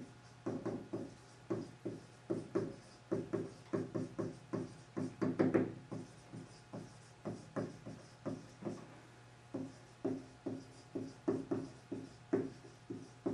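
Dry-erase marker writing on a whiteboard: a quick run of short, slightly squeaky strokes, a few each second, over a steady low hum.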